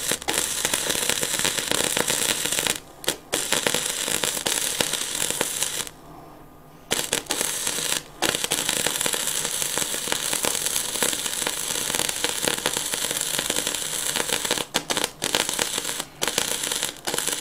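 Gasless flux-core MIG welding arc crackling and spitting on 3 mm steel plate, with the wire on positive electrode, the wrong polarity for flux-core wire, which throws a lot of spatter and gives less heat into the work. The arc stops and restarts several times, once for about a second.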